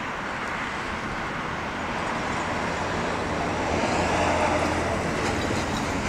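Road traffic: a steady rush of car tyres and engines, growing louder for a second or so around four seconds in.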